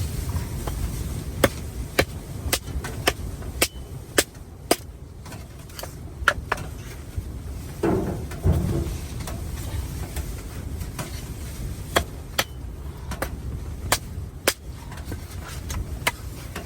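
A series of sharp, hard knocks, mostly in quick runs about two a second with pauses between, over a steady low rumble; a short scraping rustle comes about halfway through.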